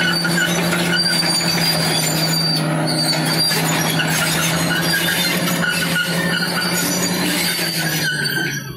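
Caterpillar D6 crawler bulldozer working under load as its blade pushes earth and rock: the diesel engine runs with a steady drone while high-pitched squeals from the steel track undercarriage come and go.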